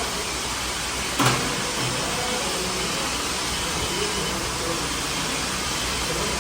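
Steady workshop background noise, a constant hiss and hum, with a single sharp clank about a second in.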